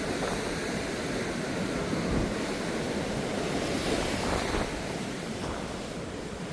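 Ocean surf breaking and washing in, a steady rush, with wind blowing on the microphone.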